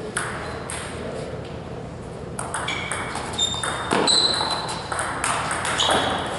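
Table tennis rally: the ball clicks off the paddles and table in a quick run of hits, several with a short high ping.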